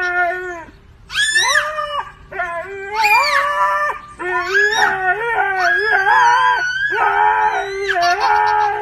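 A Siberian husky howling in a run of long calls that rise and fall, with short breaks between them, and a toddler's high voice howling along with it.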